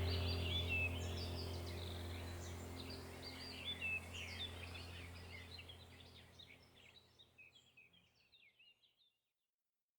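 Small birds chirping and twittering over a low steady hum, the whole fading out to nothing in the last second or so.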